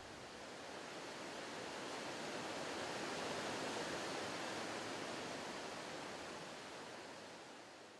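River water rushing in an even, steady hiss that swells over the first few seconds and then fades away toward the end.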